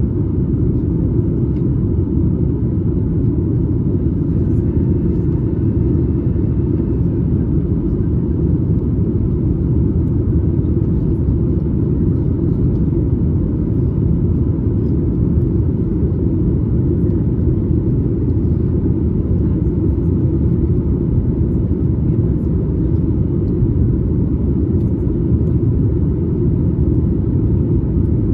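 Steady low drone inside the cabin of a Boeing 737 MAX 8: its CFM LEAP-1B engines and the airflow over the fuselage, even and unbroken.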